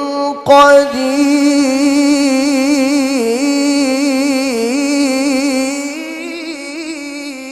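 A Quran reciter's voice holding a long, high, ornamented melodic phrase in tilawah style, the pitch wavering up and down in trills. There is a brief break about half a second in, and the voice softens near the end.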